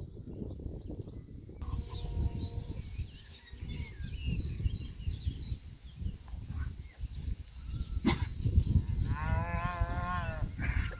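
A young weaned calf mooing once near the end, a wavering call lasting about a second, with a shorter, fainter call about two seconds in.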